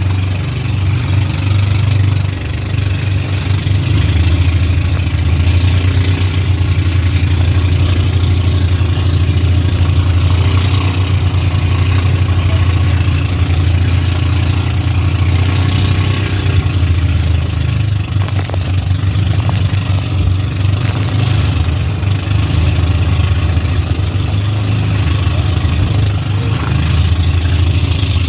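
Motorized outrigger banca's engine running steadily under way, a loud constant low hum, with a hiss of wind and rushing water over it.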